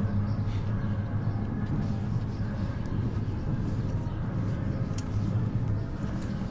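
Steady low hum of a vehicle engine in street traffic, level throughout with no rise or fall.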